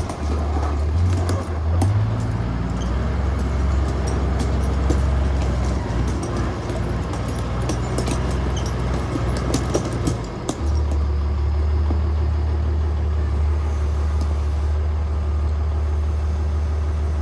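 Komatsu WA100-3 wheel loader's diesel engine running, with many sharp clicks and knocks over the first ten seconds or so, then settling to a steady idle.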